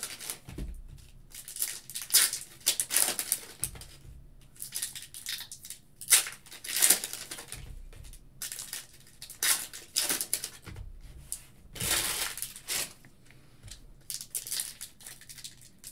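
Foil trading-card pack wrappers being torn open and crinkled, with cards handled and slid across a table: a run of uneven rustles and crackles.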